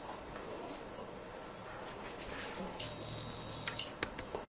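A single high electronic beep, one steady tone about a second long, sounds past the middle, followed by a few sharp clicks near the end.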